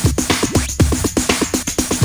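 Electronic dance music with a steady beat and a fast repeating bass pattern.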